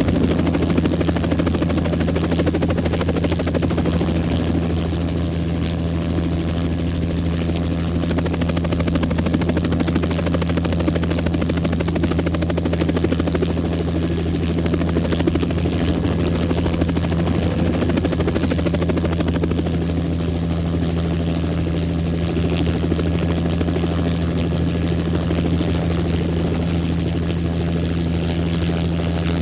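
Helicopter running steadily: a constant low drone of rotor and engine holding one pitch.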